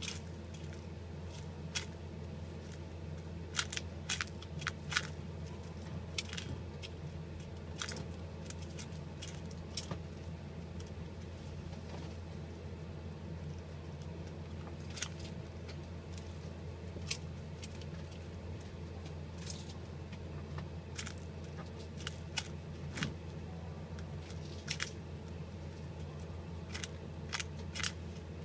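A steady low hum with irregular sharp clicks and crackles scattered through it, some in quick clusters.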